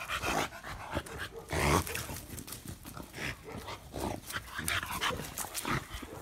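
Young American Bully dogs playing and wrestling on grass, making a string of short, irregular dog noises, loudest about a second and a half in.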